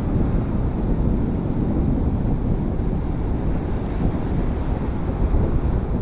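Ocean waves washing onto the shore, a steady rushing rumble, with wind buffeting the microphone.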